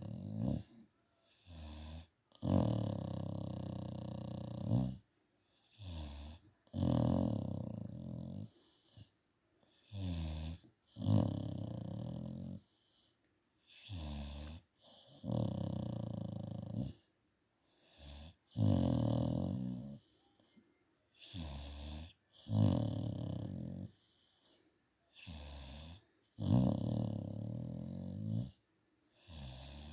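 Staffordshire bull terrier snoring in a steady breathing rhythm: a long snore of about two seconds, then a shorter one, the cycle repeating every four seconds or so.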